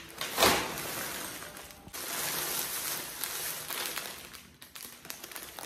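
Plastic packaging rustling and crinkling as packets are handled, loudest about half a second in.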